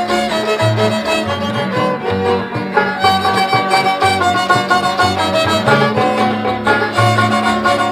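Background music with a fiddle carrying the melody over plucked strings and a steady bass line.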